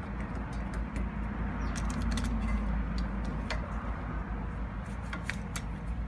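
Scattered light clicks and taps of hand tools and brake parts being handled at a car's front brake caliper, over a steady low rumble.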